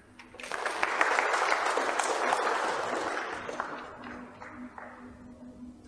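Audience applauding in the hall, swelling quickly and dying away after about three seconds.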